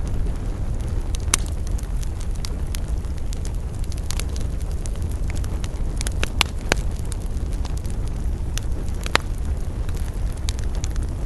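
Campfire burning, with scattered sharp crackles and pops of burning wood over a steady low rumble. The loudest pops come about a second in, a cluster around six to seven seconds, and one near nine seconds.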